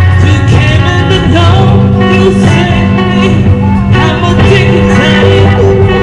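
A street busker's electric guitar played through a small portable amplifier over a steady bass line, with singing.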